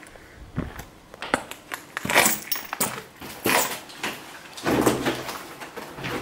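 Footsteps crunching and knocking over rubble and loose broken wooden boards, an irregular run of sharp clicks with louder crunches about two, three and a half and five seconds in.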